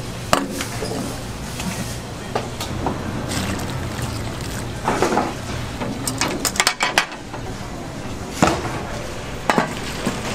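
Metal ladle and tongs clinking and scraping against a steel pan while boiled rice-cake sticks are scooped out of hot broth and poured, with splashes of broth. There are single sharp clinks every second or two and a quick run of clinks about two-thirds of the way through.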